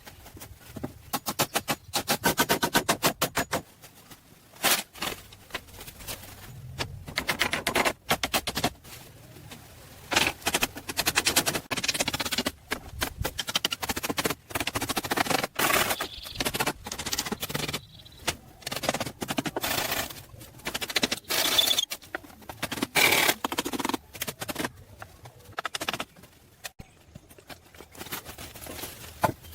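Hand tools at work: irregular runs of sharp knocks, some coming fast, with scraping in between.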